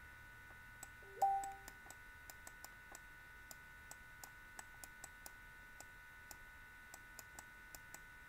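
Faint, irregular light clicks, about three a second, from handwriting numbers with a computer pen or pointer, over a faint steady electrical hum. About a second in, one brief tone that steps in pitch lasts under a second.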